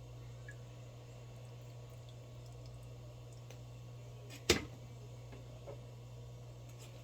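A steady low hum with one sharp knock about four and a half seconds in, then a faint tick a second later.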